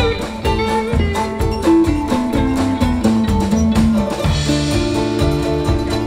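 Live band playing an instrumental passage: a guitar melody over bass notes and a drum kit.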